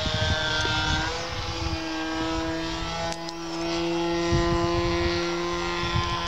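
Radio-controlled aerobatic model airplane flying overhead: its motor and propeller give a steady drone whose pitch shifts slightly a few times as it manoeuvres.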